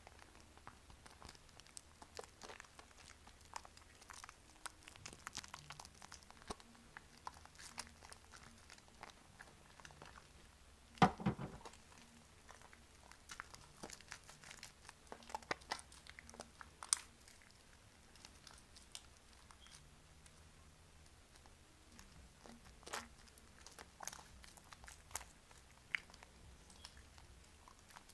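Bar soap being lathered by hand in a foil tray of soapy water: a scatter of soft wet squishes, crackles and crinkles of the aluminium tray, with one louder wet thump about eleven seconds in.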